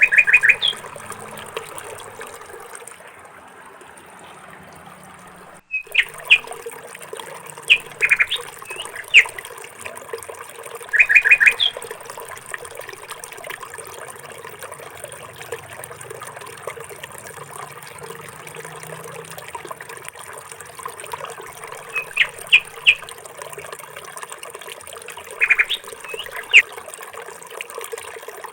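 Small birds chirping in short clusters of quick notes every few seconds over a steady sound of running water.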